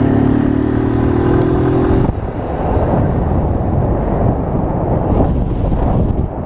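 Single-cylinder 160 cc motorcycle engine running at steady revs under way, heard from the rider's seat with wind and road noise; its steady note drops out suddenly about two seconds in, leaving mostly wind and road rush.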